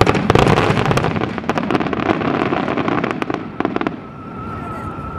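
Fireworks bursting in a dense, rapid barrage of bangs and crackles that stops about four seconds in, leaving a thin wavering tone.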